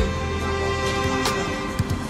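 Background music with held notes and a few light percussive strokes.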